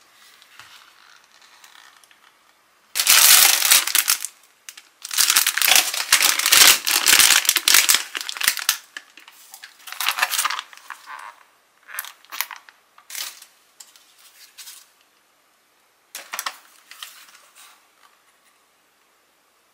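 Plastic grocery bag and packaging rustling and crinkling as items are pulled out and handled. The loudest stretch comes in two long bursts in the first half, followed by a few shorter rustles.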